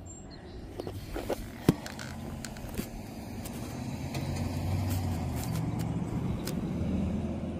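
A road vehicle passing, its low engine and tyre rumble building from about three seconds in and easing off near the end. A few sharp clicks come in the first two seconds, one of them loud.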